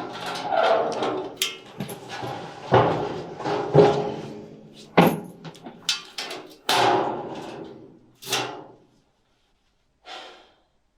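A rapid run of a dozen or so knocks and slams, each ringing briefly, dying away about nine seconds in, then two faint knocks near the end.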